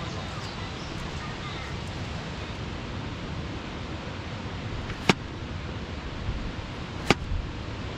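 Steady wind buffeting the microphone, with two sharp clicks or knocks about five and seven seconds in.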